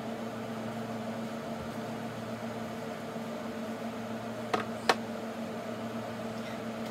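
Steady machine hum, like a small electric motor running. Two short sharp clicks come close together about two-thirds of the way through.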